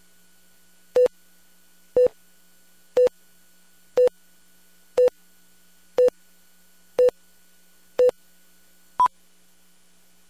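Broadcast countdown-leader beeps: nine short tones one second apart. The first eight are at one low pitch; the ninth, on the count of two, is an octave higher. A faint steady hum runs underneath.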